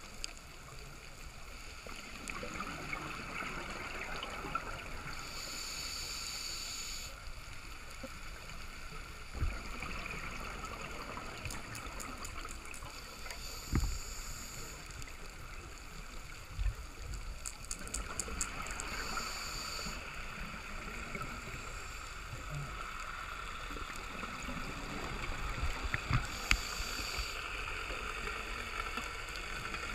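Underwater sound from a diver's camera: a scuba regulator's exhaled bubbles gurgling out in bursts about every six to seven seconds, over a steady muffled water hiss, with a few dull knocks.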